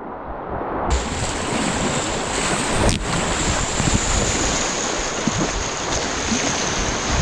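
Rushing whitewater and splashing water around a kayak, heard close up with some wind on the microphone. It is muffled for about the first second, then the full rush comes in, with one sharp splash about three seconds in.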